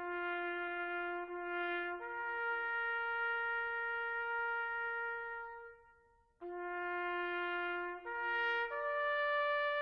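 Trumpet-like brass notes played slowly, without speech. A low note steps up to a higher one held for about three seconds, then breaks off briefly. The low note returns about six seconds in and climbs in two steps to a higher held note.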